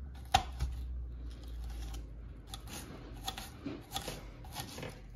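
Knife cutting an onion on a cutting board: a sharp knock about a third of a second in, then irregular short cutting taps.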